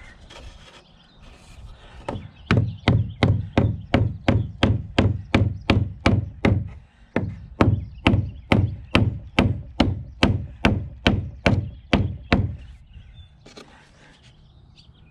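Steady hammer blows on a wedge, about three a second for some ten seconds, driving it between a screwed-down block and a bowed tongue-and-groove siding board to force the board over.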